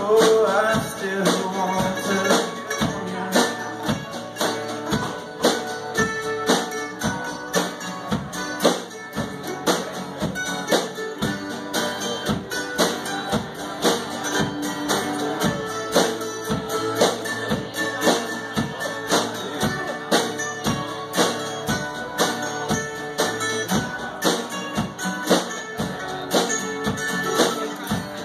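Live acoustic band playing: strummed acoustic guitar and mandolin over a steady beat of hand percussion.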